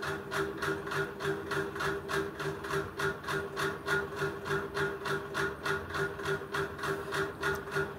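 A machine running steadily: a hum with a regular pulsing beat, about four beats a second.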